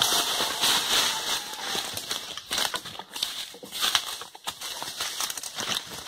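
Hurried footsteps crunching through dry leaf litter and twigs, with leaves and branches swishing past, an irregular run of snaps and crackles over a steady rustle.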